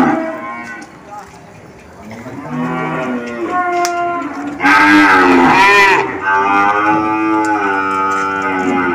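Water buffalo lowing: about three long, drawn-out calls one after another, the loudest about halfway through.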